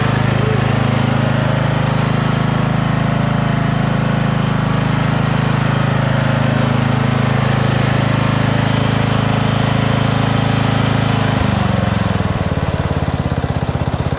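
Lawn tractor's 12-horsepower flathead engine running steadily as the tractor is driven forward and back to test its transmission. About eleven seconds in the engine speed drops suddenly and it carries on at a lower, pulsing chug.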